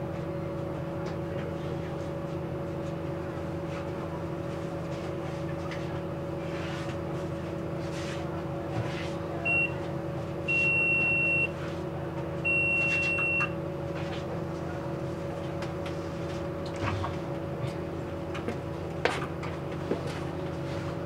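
Bus idling at a stop with a steady drone, and about halfway through an electronic warning beeper sounds three times, one short beep then two longer ones of about a second each, as given by a bus's door warning.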